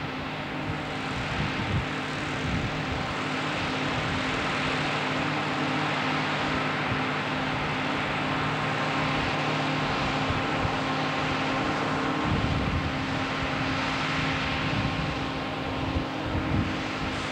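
Self-propelled forage harvester chopping maize, with a tractor running alongside: a steady, even machinery drone at constant load, with wind rumbling on the microphone now and then.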